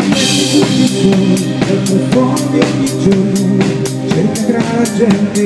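Live rock band playing an instrumental passage. A drum kit keeps a steady beat with regular cymbal strokes and a cymbal crash right at the start, over sustained bass and chords.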